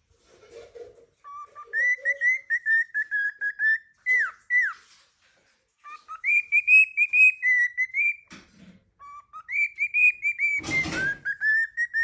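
Pet cockatiel whistling a tune: runs of short clear notes, most held near one pitch, with a few downward swoops, in phrases broken by pauses. A short scratchy rustle cuts in near the end.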